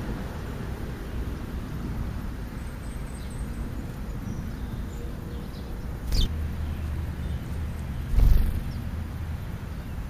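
Low steady rumble of wind on a microphone sitting in the grass, with a short flutter about six seconds in as a house sparrow takes off right beside it. A louder low thump follows about two seconds later.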